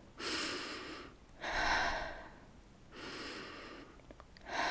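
A woman's audible, effortful breaths, in and out, four of them about a second each: a demonstration of the shallow, quick chest breathing typical of sexual anxiety.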